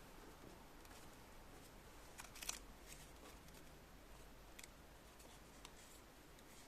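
Near silence with a few faint clicks and taps: a short cluster about two and a half seconds in, then single ticks twice more.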